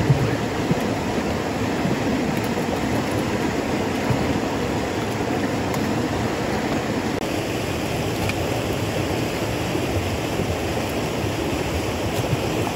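Shallow stream rushing over rocks, a steady hiss of running water throughout. Right at the start there is a brief knock as the wooden box trap is set down on the rock.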